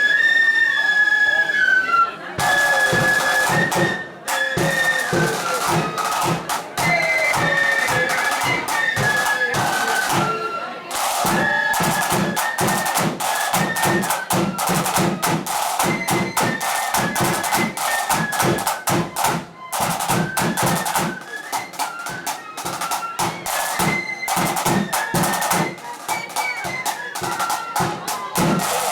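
Blood-and-thunder flute band playing: flutes carry the melody over rapid, heavy drumming, the drums coming in about two seconds in under a held flute note.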